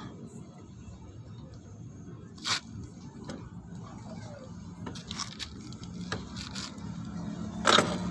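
Metal clinks and scrapes from a Honda Vario 125's CVT drive belt and clutch pulley being fitted by hand. There is a sharp knock about two and a half seconds in, a few lighter taps, and a loud clack near the end, over a steady low hum.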